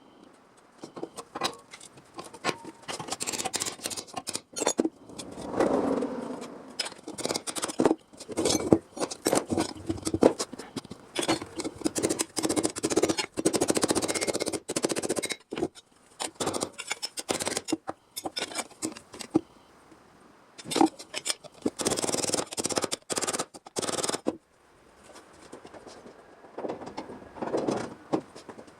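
Hand tools working sheet steel for a car-body repair panel: an irregular run of sharp clicks, knocks and snipping or scraping strokes, with two longer spells of steady scraping or cutting, quieter near the end.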